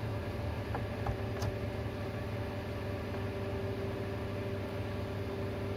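Steady hum and hiss of a powered audio amplifier and its cooling fan, with a few faint clicks about a second in.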